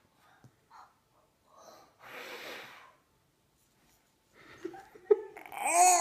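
A toddler blowing through a soap-bubble wand: one long breathy puff about two seconds in. Near the end the child breaks into loud laughter.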